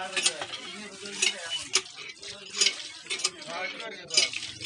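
Water gushing from a hand pump in repeated surges with the strokes of the handle, splashing over hands, swamp eels and a plastic basket as the eels are rinsed.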